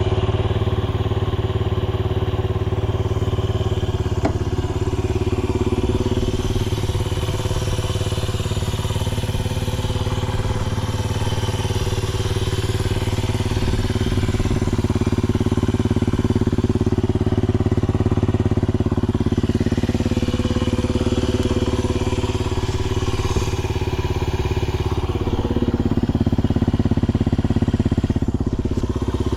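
Honda Ape 50's single-cylinder four-stroke engine, breathing through a Racing Service ZERO aftermarket muffler, running at a steady idle. The engine speed shifts slightly now and then and picks up a little near the end. The idle is even and shows no abnormal noise.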